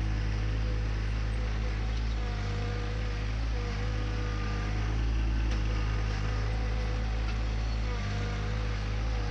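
John Deere 2025R compact tractor's three-cylinder diesel engine running steadily while it drags a rock rake across loose soil.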